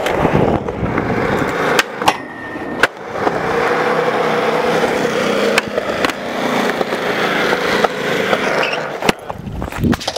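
Skateboard wheels rolling over a concrete skatepark, broken by about five sharp clacks as the board pops and lands on tricks.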